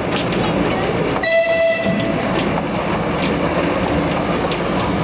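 Small 2 ft gauge park train running, with a steady rumble of wheels and light clicks over the rail joints. About a second in, the locomotive gives one short horn blast, under a second long.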